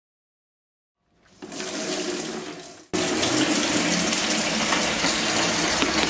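Kitchen tap running into a plastic mop bucket in the sink, filling it with water. The water starts a little over a second in, breaks off for an instant near the three-second mark, then runs on steady and louder.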